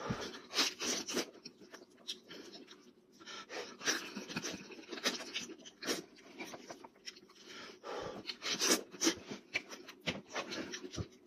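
Close, wet eating sounds of a person chewing and lip-smacking on meat pulled from a cooked goat head by hand, with irregular short clicks and breaths.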